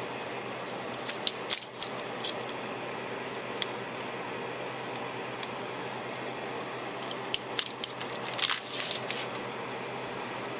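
Light clicks and taps of small clear gems and paper being handled on a crafting surface, scattered at first with a busy cluster about seven to nine seconds in, over a steady low hum.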